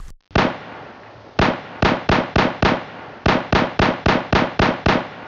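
A series of about fourteen sharp, sudden bangs, each with a short fading tail, in an irregular run that speeds up to about four a second in the middle.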